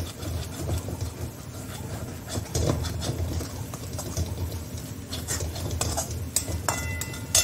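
Metal spatula scraping and tapping around a metal kadai, stirring and frying a thick masala paste that is almost fully roasted. Near the end a sharp metallic clink rings briefly.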